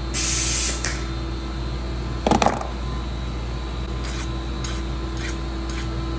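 A short hiss, then a sharp snap a little over two seconds in as hand cutters nip off the protruding end of a trigger-guard pin. From about four seconds, a hand file rasps across the cut pin end in even strokes, about two a second.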